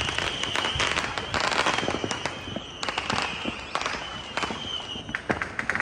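Fireworks and firecrackers going off in a dense, rapid string of sharp cracks and pops, with a high hiss that comes and goes.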